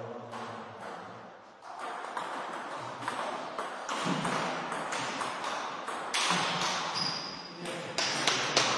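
Table tennis rally: the ball clicking in quick succession off the bats and the table, picking up about two seconds in, with the hall's echo behind each hit.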